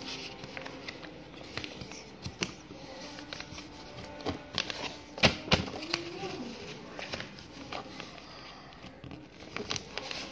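A sheet of paper being folded and creased by hand on a tabletop: rustling, crinkling and light taps, with two sharp clicks a little past the middle.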